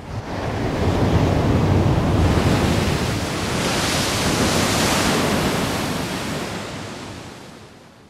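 Heavy sea surf breaking against rocky cliffs: a wave crashes with a low rumble in the first seconds, a second surge of hissing spray follows a few seconds later, then the sound fades away.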